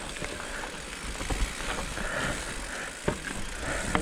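Mountain bike rolling over a rough dirt trail: steady tyre and ride noise with scattered rattles and clicks from the bike, and a low wind rumble on the microphone.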